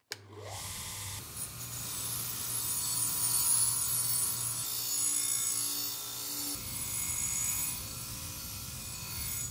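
Bench grinder switched on with a click, its motor humming as the wire wheel spins up. A rusty steel cleaver blade is then pressed against the wire brush wheel, giving a steady scratching hiss as loose rust is brushed off.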